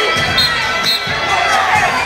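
Feet stomping on a gymnasium floor in a stepping routine, irregular low thumps over a cheering crowd and music.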